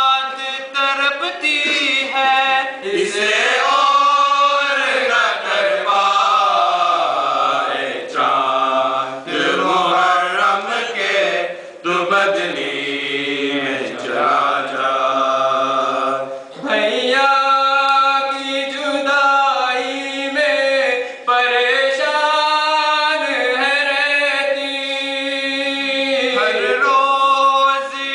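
Men's voices chanting a noha, a Shia Muharram lament in Urdu, unaccompanied, into a microphone. Long drawn-out notes rise and fall, with a brief break about sixteen seconds in before the next phrase.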